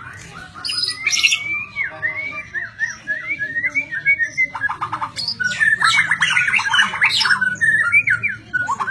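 White-rumped shama singing a varied song of whistled glides, turning to fast runs of rapidly repeated notes about halfway through, over a low steady hum.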